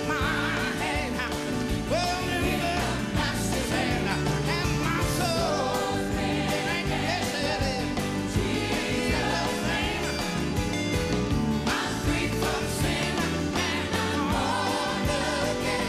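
Live gospel song: a male soloist singing with a sliding, melismatic voice over a band with keyboards and drums, a choir singing behind him.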